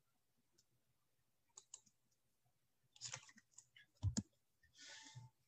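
Near silence broken by a few faint clicks, a soft low knock about four seconds in, and a short breath-like hiss near the end.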